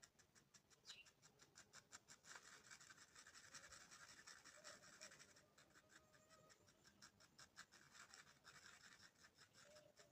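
Faint, quick scratching strokes, about five a second, as glue is stirred and mixed with a stick.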